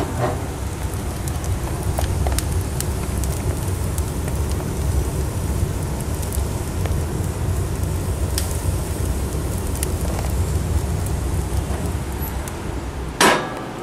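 Wood fire burning in a wood stove's firebox: a steady low rumble with scattered crackles and pops from the burning logs. One sharp knock near the end.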